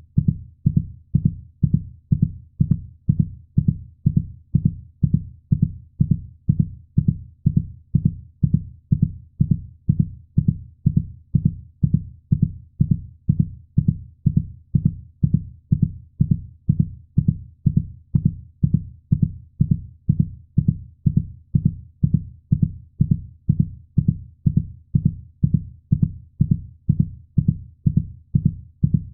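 Heartbeat sound: a steady, even rhythm of low, muffled thumps, about two a second, unchanging throughout.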